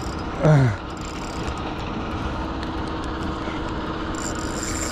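Steady hum of a boat's motor running as the boat moves. About half a second in, a man gives one short grunt that falls in pitch.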